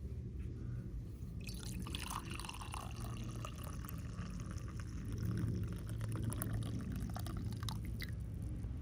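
Tea being poured from a flask into a cup, a trickle of liquid that starts about a second and a half in.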